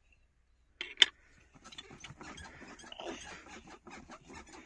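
A loud plastic clack about a second in, as a plastic stacking peg is set down on the pegboard. It is followed by a steady run of quick, small clicks and rustles.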